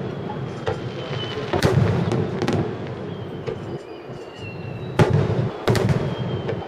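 Aerial firework shells bursting in a string of booms over a continuous echoing rumble, the loudest about five seconds in.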